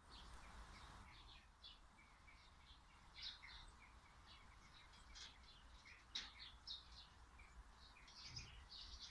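Faint songbird chirping and twittering, many short calls in quick succession, over a low background hum. A brief sharp click comes about six seconds in.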